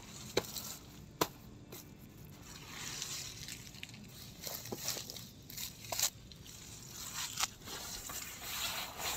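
Rustling and crinkling of a sleeping bag and a foil-covered tent floor mat as they are handled and spread out, with a few sharp clicks scattered through, the loudest about a second in.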